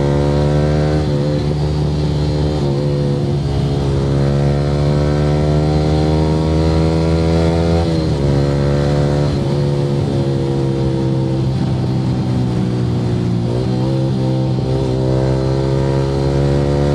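Yamaha R15 V3's single-cylinder engine through an Akrapovic R9 aftermarket exhaust, ridden under load: the exhaust note climbs slowly and falls back sharply about three times.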